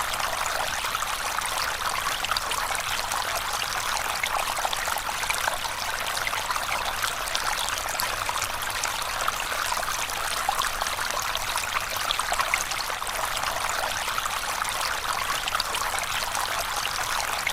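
A stream of water flowing steadily, a continuous rushing babble with fine splashing throughout.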